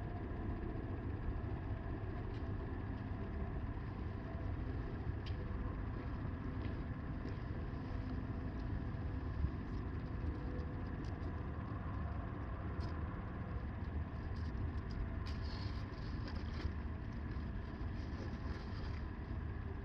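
Wind blowing across the microphone: a steady low rumble, with a few light ticks in the second half.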